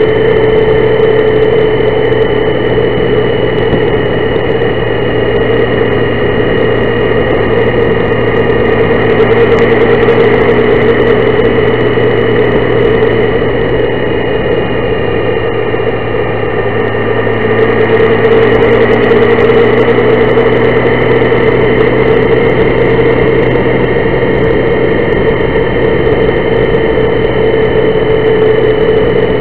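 Honda Gold Wing motorcycle cruising at a steady speed: a loud, even engine drone mixed with road noise, holding nearly the same pitch throughout, easing off slightly midway and swelling again.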